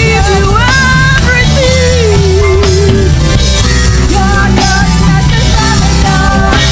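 Gospel praise music from a church worship band, with drums and bass under a voice singing a gliding melody.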